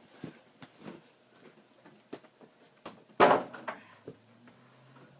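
Basketball dunk: a few light knocks, then a loud clatter a little over three seconds in as the ball is slammed through the hoop, rattling the rim and backboard briefly.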